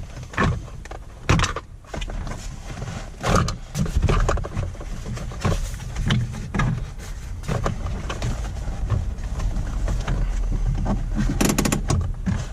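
Handling noise from plastic dashboard console trim and the fabric shift boot being worked off the shift lever: irregular clicks, knocks and rustling, with a quick run of clicks near the end.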